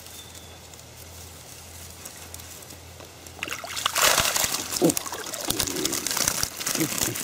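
Mesh keepnet full of fish being hauled up out of the water, with water splashing and streaming off the net and crackling through the reeds from about three and a half seconds in.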